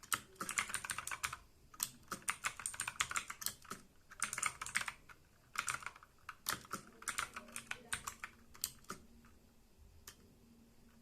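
Typing on a Walton KM02 mechanical keyboard with clicky blue switches: rapid key clicks in bursts of about a second with short pauses, thinning to a few single clicks near the end.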